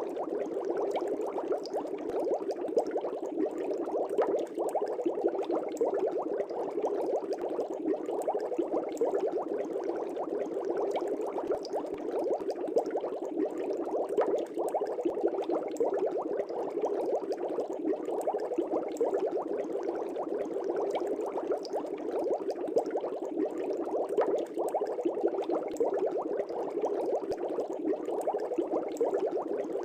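Aquarium air bubbles rising and burbling at the water surface, a steady dense bubbling with many small pops.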